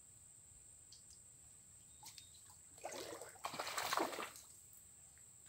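Water splashing in two bursts for about a second and a half, as a hooked fish is pulled up at the surface on a bent fishing pole. A steady high insect drone runs underneath.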